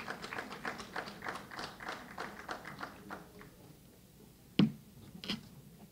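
Scattered applause from a small audience, the separate hand claps about five a second, fading out a little after three seconds in. Near the end come a single loud sharp knock, the loudest sound, and a weaker one a second later.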